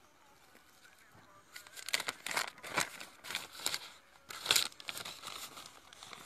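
Black plastic sleeve crinkling and rustling as it is opened out and pulled down over a freshly grafted walnut stump. The rustling starts about a second and a half in, comes in several bursts, and is loudest a little past the middle.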